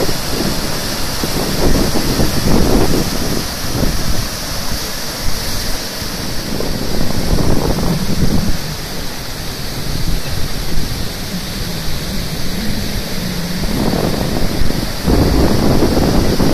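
Heavy surf breaking and washing over rocks, with wind buffeting the microphone in irregular gusts.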